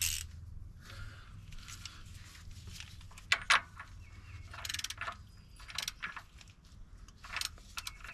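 A socket wrench working on a loose oil filter housing: irregular metallic clicks and scrapes, with two sharp clicks close together about a third of the way in. Faint bird chirps behind.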